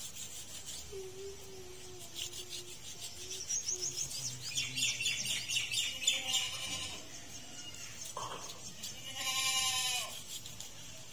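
A goat bleats once near the end, a wavering call about a second long and the loudest sound here. Before it, small birds chirp in quick high runs, and there is a shorter call a second or so before the bleat.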